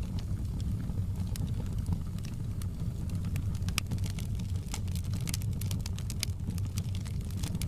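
Fireplace fire crackling: irregular sharp pops and snaps over a steady low rumble of the flames, the pops coming more thickly in the second half.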